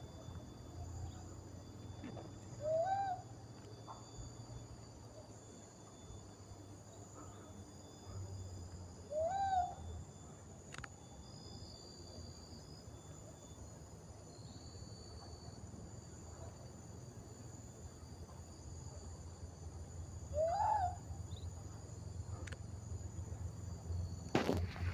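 An animal call heard three times, each a short pitched note that bends up and back down, spaced several seconds apart, over a steady high drone of insects. A sharp knock comes near the end.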